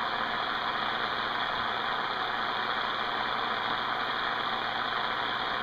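Steady static hiss from a CB radio receiver on an open 11-meter channel with no station transmitting.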